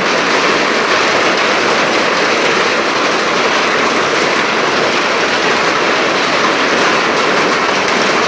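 Fast-flowing floodwater rushing, a loud, even noise without breaks.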